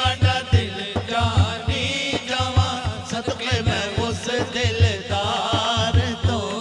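A man's voice singing a devotional naat, the melody wavering and held on long notes, over a steady low drumbeat of about three to four beats a second.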